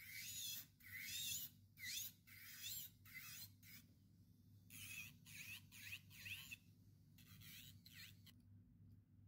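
Electric nail drill with a white bit filing an acrylic nail to shape, in about a dozen short strokes of high grinding hiss whose pitch sweeps up and down with each pass. There is a short break midway, and the strokes stop shortly before the end.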